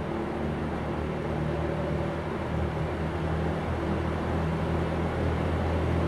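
Berns Air King 20-inch reversible box fan running: a steady motor hum under the rush of air from its spinning blades, growing a little louder over the few seconds.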